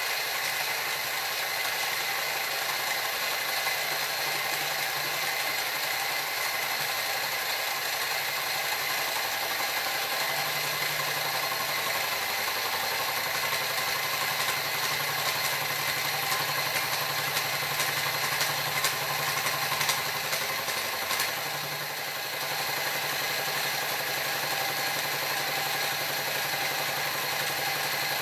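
Benchtop mini mill running with a steady gearhead and motor whine while a flycutter held in a 3D-printed PLA collet takes a facing pass across aluminium. A cluster of sharp ticks comes about two-thirds of the way through, followed by a brief dip in level.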